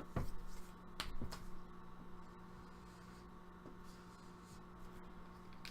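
Quiet room tone with a steady low electrical hum, and a few faint clicks or taps in the first second and a half.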